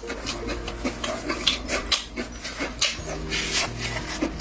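Close-up eating sounds of a person chewing and slurping cold noodles, with quick irregular wet clicks.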